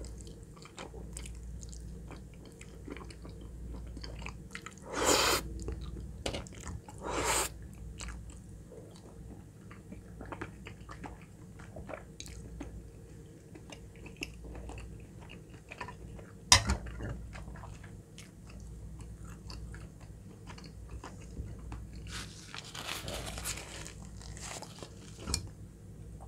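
Close-miked eating sounds of chewing, biting and crunching through a cheese-topped chicken alfredo pasta, with small clicks throughout. Louder crunchy spells come about a fifth and a quarter of the way in and again near the end, and a single sharp click comes about two-thirds of the way through.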